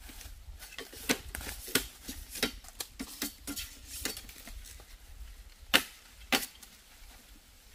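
Irregular sharp knocks and snaps of wood being worked by hand, with two louder cracks about six seconds in.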